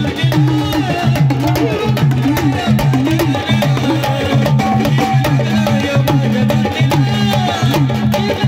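Loud instrumental Waghya Murali folk music: fast, dense hand percussion under a pitched melodic line that wavers up and down.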